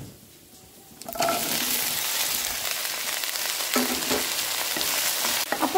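Chopped okra frying in hot oil in a pan: a steady loud sizzle that starts suddenly about a second in, after a quieter first second.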